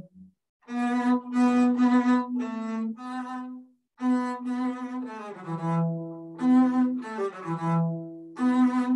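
Solo double bass played with the bow in its upper register: a phrase of separate notes, a short break about four seconds in, then more notes with some left ringing under the next. It is played with a fingering chosen to make the instrument ring more.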